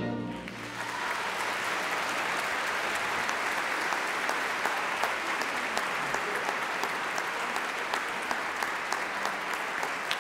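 Concert audience applauding: the orchestra's last chord dies away right at the start and the clapping swells in within about a second, then holds steady with a few sharper individual claps standing out.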